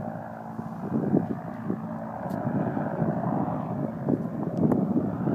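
Goodyear blimp's propeller engines droning steadily overhead, with wind buffeting the microphone.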